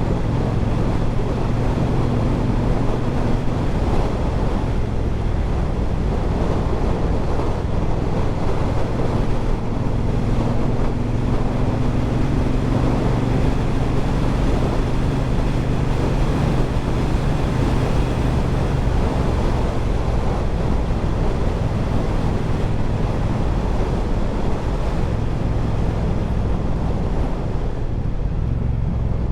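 Triumph Bobber's 1200 cc parallel-twin engine running at a fairly steady pace while riding, under heavy wind noise on the microphone.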